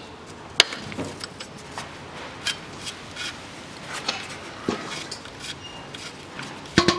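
Ring spanner on the 14 mm oil drain plug of the engine's sump as the plug is worked loose: scattered metallic clicks and taps, the sharpest about half a second in and a cluster near the end.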